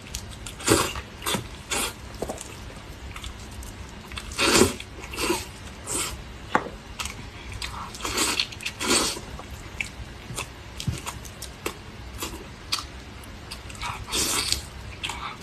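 A person chewing and biting food close to the microphone: irregular short bites and chews, several of them louder.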